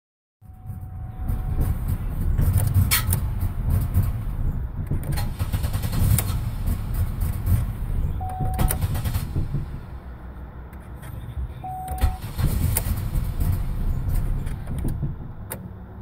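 A 2004 Chevrolet Impala's ignition key is worked in a faulty ignition switch, making sharp clicks here and there while a short electronic warning tone sounds three times, over a steady low rumble. The dash electrics cut in and out, a sign of the failing ignition switch.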